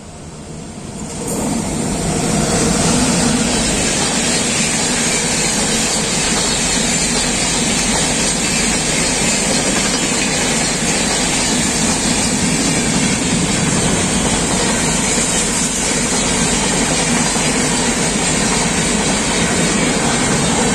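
Express passenger train, hauled by a WAP-7 electric locomotive, passing close at high speed. The rush of wheels on rail and air builds sharply about a second and a half in as the locomotive goes by. It then holds loud and steady as the coaches stream past.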